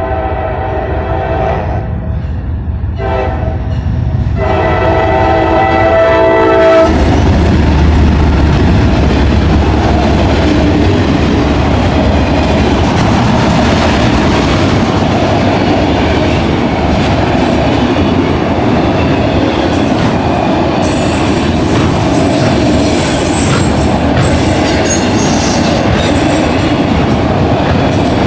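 CSX freight locomotive's horn sounding several blasts, the crossing warning, the last one held for a couple of seconds and cutting off about seven seconds in. Then the loud, steady rumble and clatter of the locomotive and autorack cars rolling past close by.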